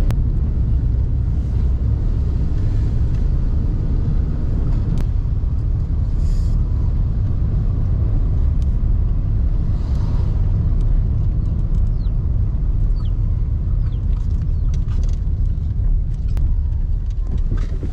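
A car driving on the road, heard from inside the cabin: a steady low rumble of engine and road noise, with a few scattered knocks.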